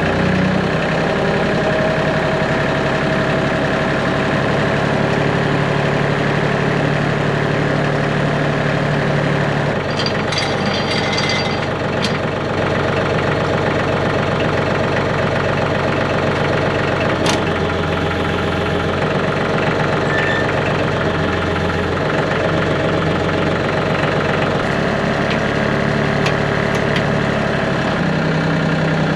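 A TYM tractor's diesel engine running steadily, its speed shifting up and down several times as it works. A few sharp knocks come about a third of the way in and once more a little later.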